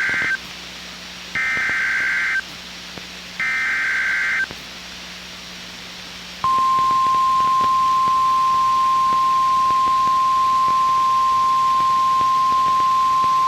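Emergency Alert System SAME header: shrill, warbling data bursts about a second long, a second apart, the last of three ending about four and a half seconds in. About two seconds later the NOAA Weather Radio 1050 Hz warning alarm tone starts, one steady single-pitch tone that holds on, signalling a warning-level alert.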